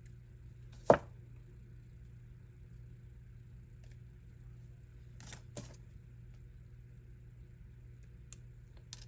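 Small flush cutters snipping through the thin metal tab of a craft cutting die: one sharp snap about a second in, then a pair of lighter clicks and two small ticks near the end as the metal die pieces are handled, over a faint steady hum.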